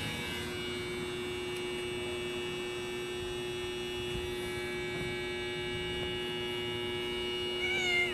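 Steady electrical hum made of several fixed tones, unchanging throughout. A little before the end a brief wavering, high-pitched sound rises and falls over it.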